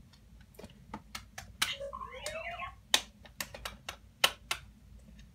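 Irregular sharp plastic clicks and taps from handling a Force Link wristband and TIE fighter toy, with a short electronic sound from the wristband's speaker about two seconds in. The Force Link's batteries are low and it is failing to activate the toy.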